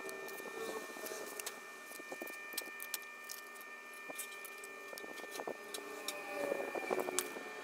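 Scattered light clicks and taps, as of small parts being handled, over a steady faint hum.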